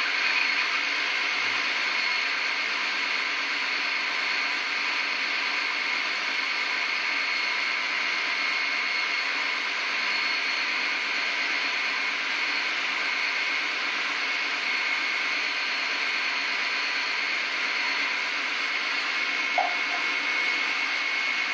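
Food processor motor running steadily with a high whine, pureeing salmon, egg whites and heavy cream into a raw salmon mousse as the cream is added slowly.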